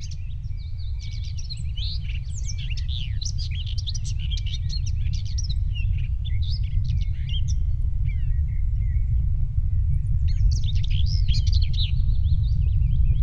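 Many small birds chirping and twittering in quick, short calls, over a steady deep rumble that grows slowly louder.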